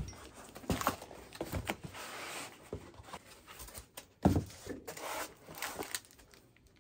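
Cardboard box and foam packing insert being handled and pulled apart: stretches of scraping and rubbing broken by several knocks, the loudest about four seconds in.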